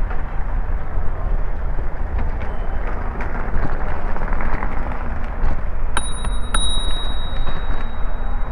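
A bicycle bell rung twice about six seconds in, two sharp dings half a second apart that ring on for about two seconds, over the steady rumble of a bicycle riding on brick pavement.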